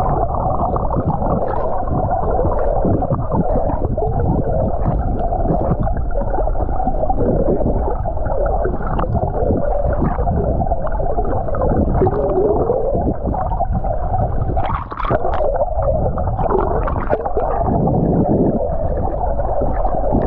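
Muffled underwater sound picked up by a submerged camera: steady rushing, gurgling water noise, with a few low wavering glides now and then.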